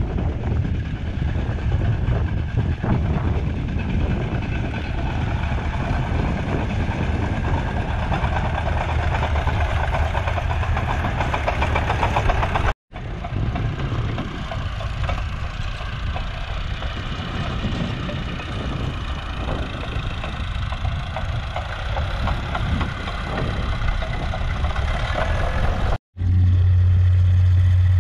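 Farm tractor's diesel engine running, with a strong low hum, heard across three edited shots that each break off with a brief dropout. The last two seconds are a steadier, louder low drone.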